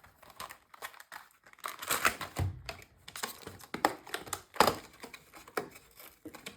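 Plastic wrapping on a trading-card booster box crinkling and rustling as it is handled, in irregular bursts of crackle.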